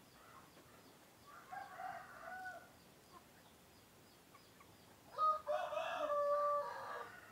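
A layer-breed cockerel crowing: a shorter, fainter call about a second and a half in, then a loud crow about five seconds in that lasts about two seconds.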